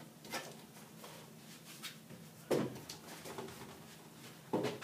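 Someone rummaging through things in a small room, moving and setting down objects: a soft rustle with a few knocks and bumps, the loudest about two and a half seconds in and another just before the end.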